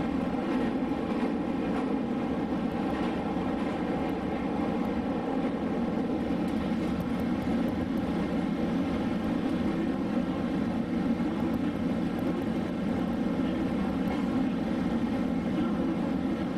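Steady running noise inside a moving electric train carriage: an even, unbroken rumble.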